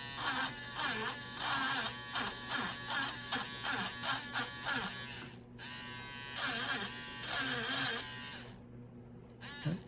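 Battery-powered diamond-tip engraving pen buzzing as it cuts letters into a metal padlock, the sound changing with each short stroke. It pauses briefly about halfway and stops for about a second near the end.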